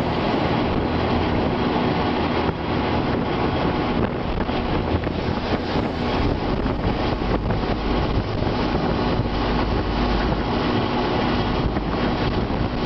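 Loud, steady rush of tornado wind hitting the microphone, with a deep rumble underneath.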